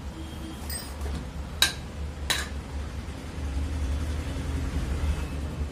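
Two sharp metallic clinks about three-quarters of a second apart, as a ceiling fan's wound stator and its metal parts are handled on a workbench, over a steady low hum.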